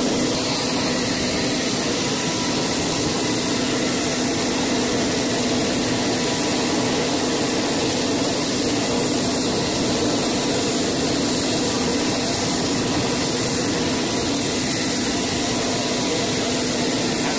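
Steady mechanical roar with a constant low hum from running machinery, unchanging throughout.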